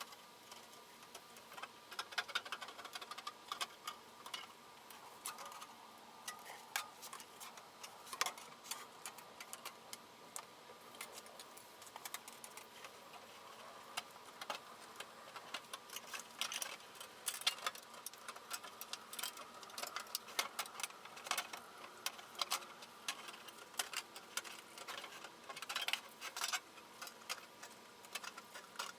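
Scattered light clicks and taps at an irregular pace, over a faint steady high whine.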